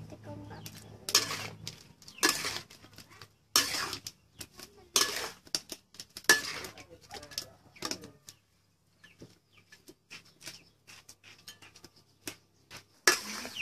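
A spatula scraping and knocking against a steel wok while stir-frying, one stroke roughly every second and a half. The strokes pause for a few seconds after about eight seconds, leaving only faint ticks, then one more scrape comes near the end.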